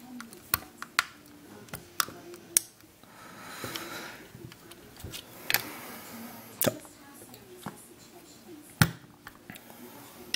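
Scattered sharp clicks and knocks from a screwdriver and the hard plastic chassis of a model locomotive being handled, with a stretch of rustling a few seconds in.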